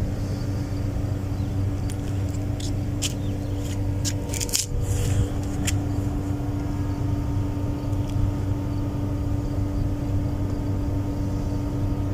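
Steady low machine hum, with a string of sharp clicks and taps between about two and six seconds in.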